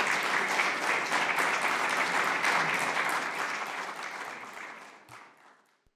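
Audience applauding, a dense patter of many hands clapping that fades out about four to five seconds in.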